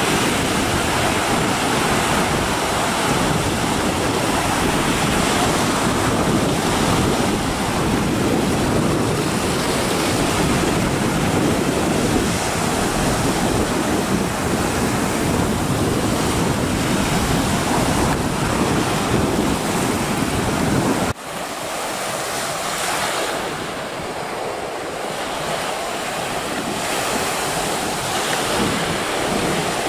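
Sea surf breaking and washing against a rocky shore, with wind buffeting the microphone as a heavy low rumble. About two-thirds of the way through, the rumble cuts off suddenly, leaving a lighter, steady wash of waves.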